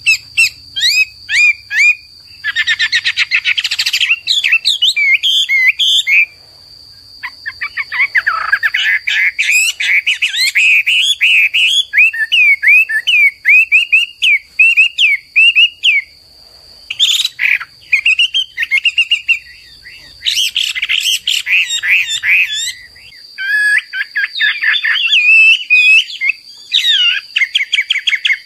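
Chinese hwamei (melodious laughingthrush) singing a loud, varied song of fast whistled phrases, repeated notes and trills. It comes in long bursts broken by brief pauses.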